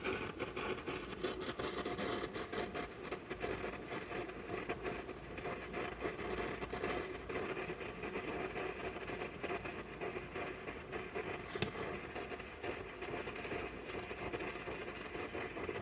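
Handheld gas torch flame hissing steadily while it heats a circuit board to melt the solder on a voltage regulator, with one sharp click about three-quarters of the way through.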